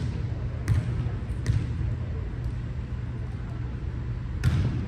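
A volleyball thumping in a gym: three quick impacts about three-quarters of a second apart, then a single louder hit about four and a half seconds in.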